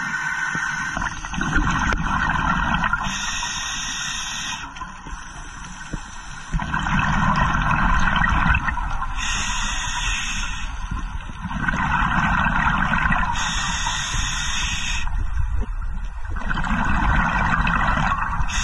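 A scuba diver breathing through a regulator, heard from an underwater camera: a hiss of inhalation alternating with a rush of exhaust bubbles, in a steady cycle about every four to five seconds.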